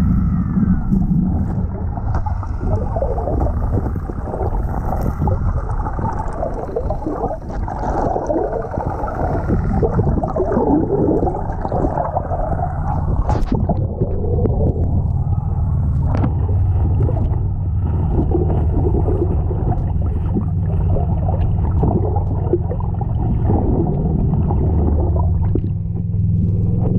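Can-Am 6x6 ATV heard from underwater as it swims: a steady, muffled low engine hum under heavy bubbling and gurgling of churned water. The bubbling is busiest in the first half.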